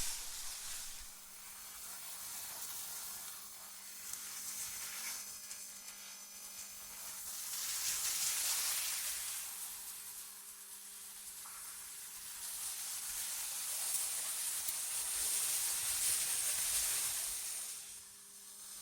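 Airy, hissing wind ambience that swells and eases in slow gusts, loudest about halfway through and again near the end, over a faint steady low hum.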